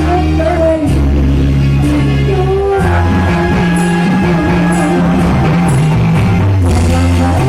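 A live band playing loud amplified music with a singer, over a steady bass line and regular cymbal hits.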